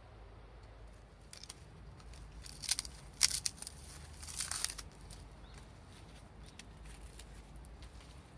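A quick run of short, sharp scraping and crinkling sounds, loudest from about three to five seconds in, then faint rustling.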